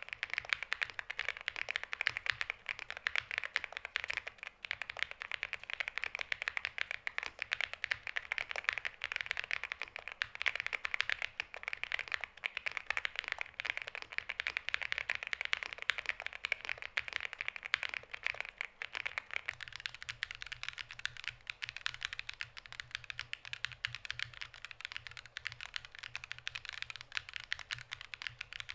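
Continuous fast typing on a NuPhy GEM80 mechanical keyboard with Lemon linear switches and stock stabilizers: a dense, even patter of keystrokes.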